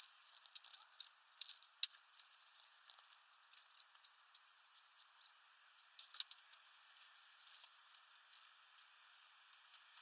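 Eurasian tree sparrows pecking and cracking sunflower seeds on a feeder tray: irregular sharp taps and clicks, the loudest about one and a half and six seconds in.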